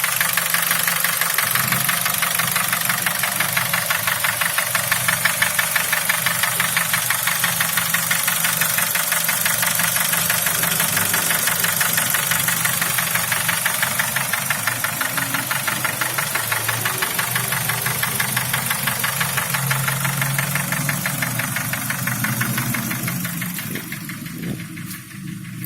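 Nissan QG18DE 1.8-litre inline-four petrol engine running near operating temperature, with a rapid, even knock ticking through its sound. The owner is tracing this knock, which he says grows quieter as the engine warms and above 2000 rpm. Near the end the ticking fades away, leaving a lower, quieter engine sound.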